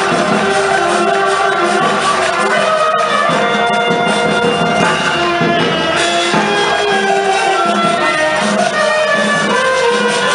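Grallers' band playing a traditional tune: several gralles (Catalan shawms) carrying the melody over a drum beat.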